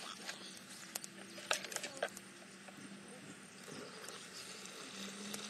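Small wood fire crackling, with irregular sharp pops and snaps; the loudest comes about a second and a half in.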